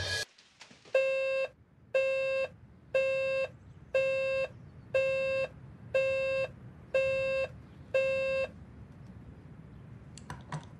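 Digital alarm clock beeping: eight even beeps, about one a second, each about half a second long. A couple of short clicks near the end.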